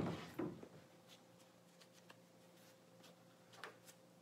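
A few light knocks and handling sounds of a cordless drill and gloved hands on a plywood boat bottom: one just at the start, another about half a second in, and two light taps near the end. Between them it is quiet apart from a faint steady hum.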